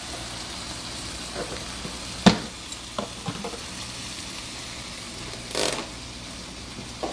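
Pepper shrimp sizzling in oil in a frying pan while a wooden spoon stirs them: a steady frying hiss with one sharp knock about two seconds in and a few lighter taps after.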